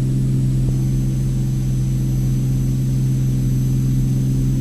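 Cirrus SR22T's turbocharged six-cylinder engine and propeller droning steadily at climb power just after takeoff, with a strong low hum and even overtones.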